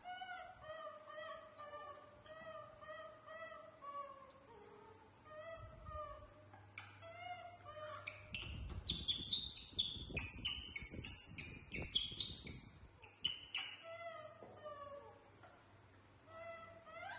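Young animals calling: a steady run of short, rising-and-falling pitched cries, about two a second. Roughly halfway through comes a denser stretch of sharp high chirps and squeals over rustling, and then the short cries carry on.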